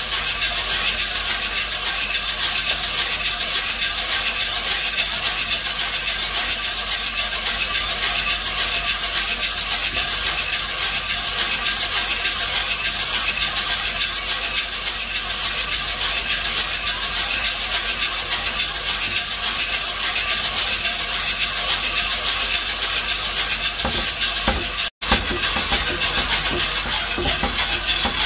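Coffee beans tumbling and rattling inside a hand-cranked perforated drum roaster turning over a gas burner, a steady rapid rattle. It cuts out for a split second near the end.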